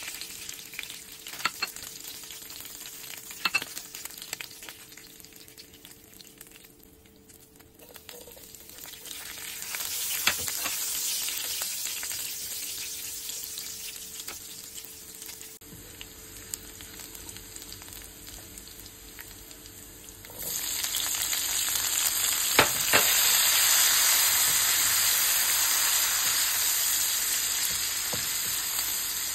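Oil sizzling in a nonstick frying pan as shrimp, then sliced garlic and onion, are fried and stirred with a silicone spatula, with a few sharp spatula taps in the first seconds. The sizzle grows much louder and brighter about twenty seconds in, with the sliced onion in the hot oil.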